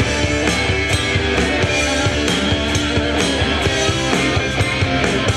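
Live rock band playing an instrumental break: guitar over bass and drums with a steady beat.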